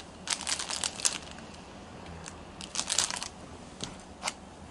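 Bursts of crinkling and rustling from materials being handled by hand: a cluster just after the start and another around three seconds in, with two short sharp clicks near the end.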